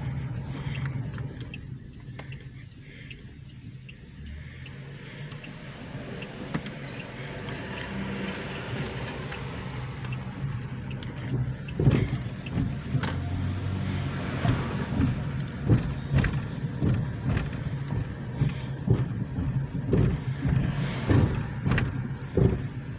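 Car engine and road noise heard from inside the cabin, with a steady low hum. From about halfway through, repeated short knocks and rattles come over it.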